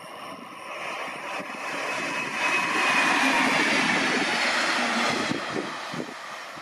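A Deutsche Bahn train passing by: a rushing rail noise that builds, peaks in the middle and fades, with a high whine that drops slightly in pitch as it goes past.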